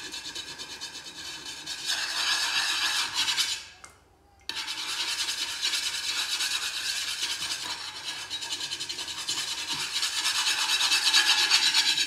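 A homemade dishwasher tablet being scrubbed hard against the burnt-on grease inside an old metal pot, a coarse, rapid rasping rub of an abrasive block on metal. The scrubbing stops briefly about four seconds in, then resumes and gets louder toward the end.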